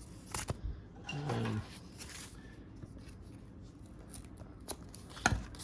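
Mailed package being opened by hand: scattered clicks and rubbing of packaging, with a short hum of a voice just over a second in and a sharp snap about five seconds in.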